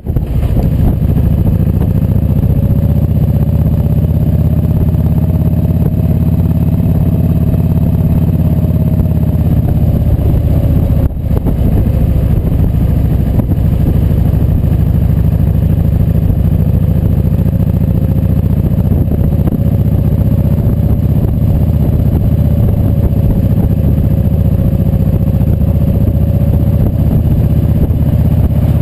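Kawasaki Vulcan Voyager VN1700's V-twin engine running steadily at cruising speed, with wind rush, its note rising slightly and easing off again. There is a brief dip in loudness about eleven seconds in.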